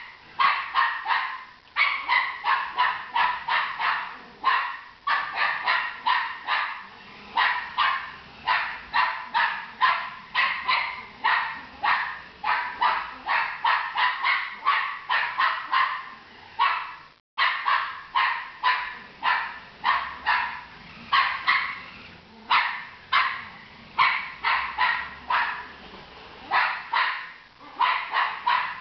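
Jack Russell terrier barking over and over in quick succession, two to three barks a second, with one brief pause a little past halfway. The barking is agitation at a remote-control toy car the dog is not happy about.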